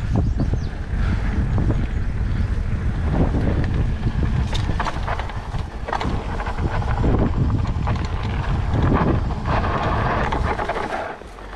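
Wind rumbling over the camera microphone as a 29+ hardtail mountain bike rolls down a dirt singletrack, with tyre noise and scattered rattles and knocks from the bike over bumps. The sound drops in level near the end.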